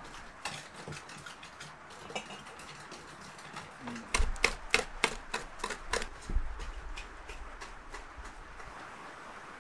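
A quick run of sharp clicks and knocks, glass jars knocking together as they are handled and set down on a wooden table, bunched together for about two seconds near the middle.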